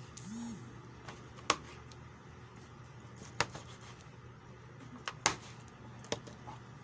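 Kitchen knife slicing eggplant on a plastic cutting board: a handful of sharp knocks a second or two apart as the blade goes through and strikes the board.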